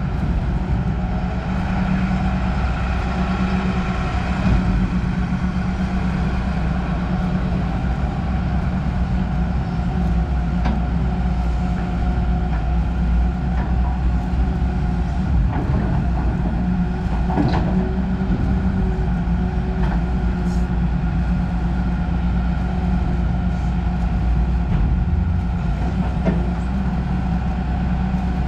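Diesel engine of a Hyundai R210 hydraulic excavator running steadily, with a few light clicks and knocks over it.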